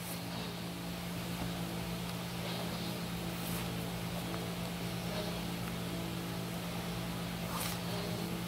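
A steady low mechanical hum, even in pitch and level throughout, with a few faint rustles of paper being pressed and creased by hand.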